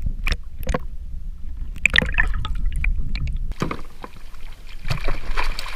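Muffled water noise with scattered sharp clicks, as heard underwater, then from about three and a half seconds in, brighter surface water sloshing and splashing around a small yellowfin tuna being reeled up beside a kayak.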